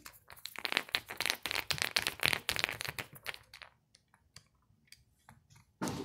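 Dense crinkling and clicking handling noise for about three and a half seconds, thinning to a few scattered clicks.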